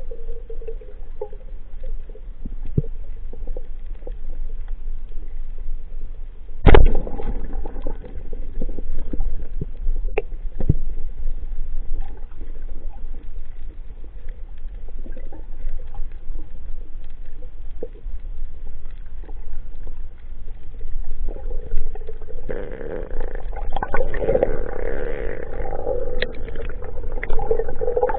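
Underwater sound heard through an action camera's waterproof housing: a dull, muffled rumble with scattered clicks and knocks. There is one loud sharp knock about seven seconds in. Near the end the noise grows louder and busier, with rustling and knocking.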